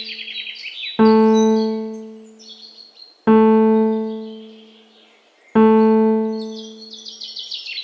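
Slow ambient music: a single low piano note struck about every two and a quarter seconds and left to fade, three times over. Small birds chirp over it in fast high trills, near the start and again near the end.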